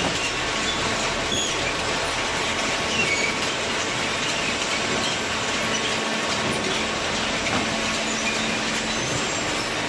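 Corrugated cardboard baling machinery running steadily: a loud, even mechanical noise with faint, scattered high squeaks.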